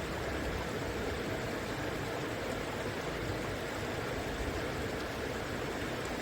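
River water flowing and rushing over rocks: a steady, even noise with no breaks.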